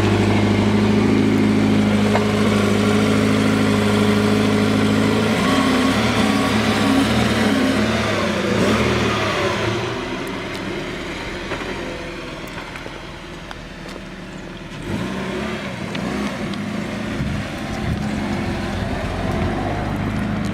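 Car engine running: a steady drone for about five seconds, then the pitch shifts and the sound fades somewhat before picking up again.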